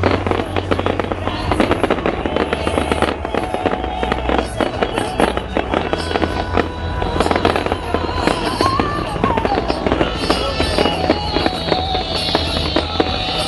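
Fireworks going off in a dense, rapid barrage of bangs and crackles, with the show's music soundtrack playing underneath.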